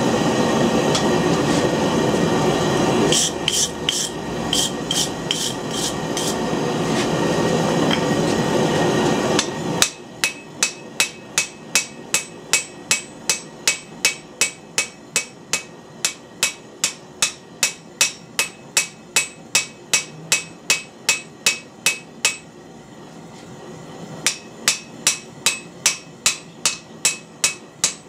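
A steady loud rushing noise fills the first ten seconds, with a brief run of light metallic taps partway through. Then a hammer, mostly a rounding hammer, strikes red-hot medium-high-carbon steel on the anvil about twice a second, drawing out an ax eye drift blank. The blows pause for a couple of seconds near the end and then start again.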